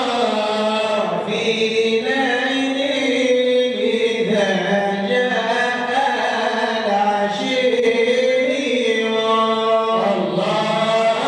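Arabic Sufi devotional chanting of a madih nabawi, the Prophet's praise poem, with long held, melismatic vocal lines that run without break.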